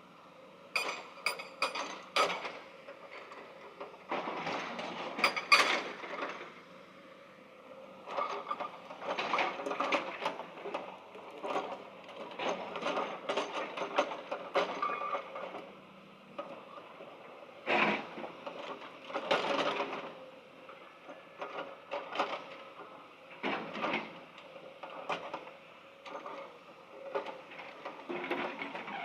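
Irregular mechanical clicking and clattering, coming in uneven bursts with no low rumble beneath.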